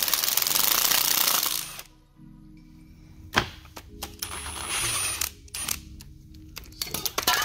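Cordless impact driver hammering on a 10 mm transaxle case bolt for almost two seconds. It runs again more lightly around the middle, with a few sharp metal clicks between runs.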